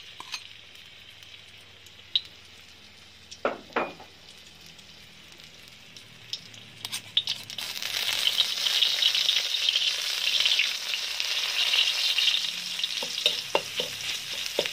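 Chili curry paste frying in hot oil in a metal wok. The sizzle starts quieter, with a couple of short knocks about three and a half seconds in, and grows much louder about halfway through. Near the end a metal spatula clicks and scrapes against the wok as the paste is stirred.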